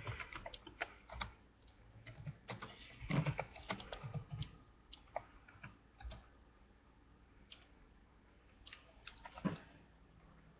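Irregular light clicks and taps of typing on a keyboard, in short clusters with quiet pauses between.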